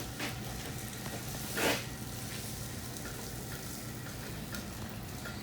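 Steady hiss of room noise, with one brief rustle about a second and a half in.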